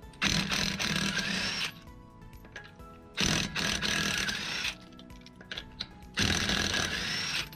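Power wrench spinning off the 14 mm bolts of a rear brake assembly, run in three bursts of about a second and a half each.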